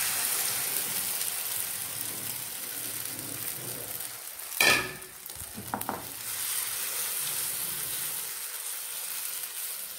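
Omelette mixture of beaten eggs and chopped vegetables sizzling in hot oil in a frying pan, a steady hiss that eases slightly toward the end. A short sharp knock about halfway through, with a weaker one a second later.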